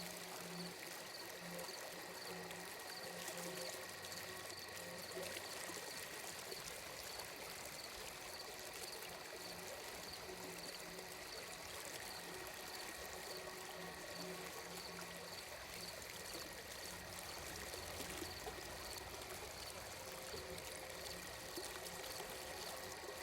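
Gently flowing stream water in an ambient sleep soundscape, steady throughout, under soft sustained tones and a faint high pulse about twice a second.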